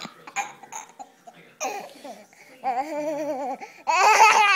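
A toddler laughing while being tickled, in short bursts of giggles, with the loudest peal of fast, pulsing laughter about four seconds in.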